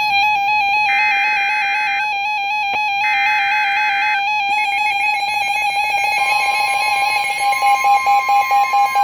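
Emergency Alert System SAME data header: three bursts of two-pitch digital data tones, each about a second long, over a steady electronic tone, starting a new weather alert. A fast-pulsing electronic alert tone follows, with a second, higher tone joining it and falling sweeps near the end.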